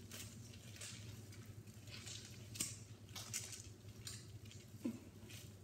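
Gloved hands kneading a wet lump of homemade glue-and-laundry-detergent slime over a metal bowl, with irregular soft squelches about twice a second.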